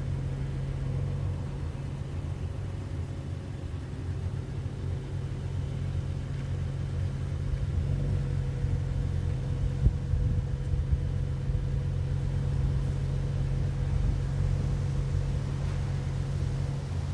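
Toyota Tacoma's 3.5-litre V6 engine idling with a steady low rumble. There is a single short knock about ten seconds in.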